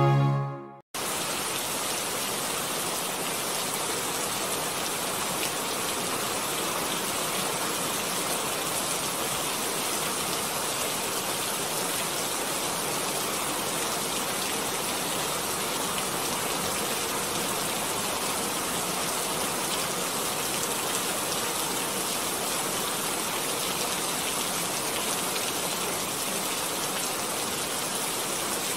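Intro music cuts off about a second in, followed by a steady, even hiss that sounds like rain.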